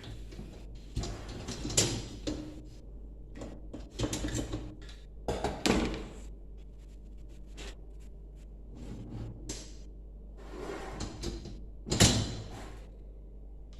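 Dishwasher racks being slid along their rails on their rollers and handled: a series of rattles, scrapes and knocks, the loudest near the end.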